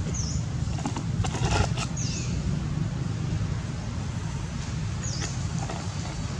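A monkey picking through dry leaf litter, with a short rustle and crackle of leaves about a second and a half in. Under it runs a steady low rumble, and a short high chirp comes three times, every two to three seconds.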